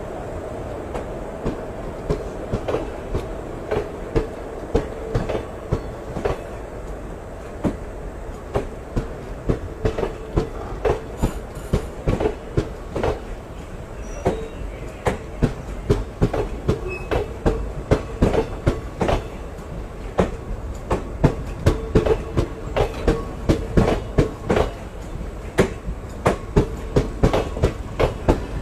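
Old ICF passenger coach running on the rails: a steady rumble with the rhythmic clickety-clack of its wheels striking the rail joints, the clacks coming closer together in the second half.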